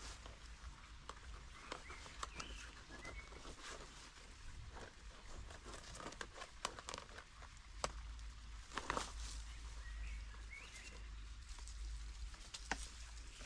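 Soil rustling and scraping, with many small clicks and knocks of a hand trowel and plastic plant pots being handled and tipped. A bird chirps faintly twice, a few seconds in and again near the end.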